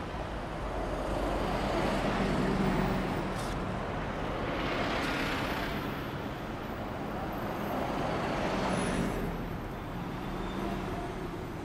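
Road traffic going past: a steady rumble of vehicles that swells three times as they pass.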